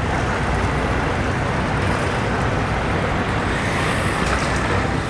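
Yamaha outboard motor on a center-console boat running at low speed close by, a steady rumble mixed with water and background noise.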